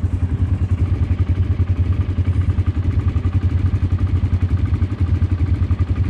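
Quad bike engines idling steadily at close range: a low, even, rapidly pulsing engine note with no revving.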